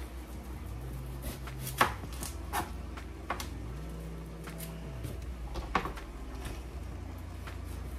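Kitchen knife cutting an onion on a cutting board: a few irregular sharp knocks of the blade on the board, the loudest about two seconds in.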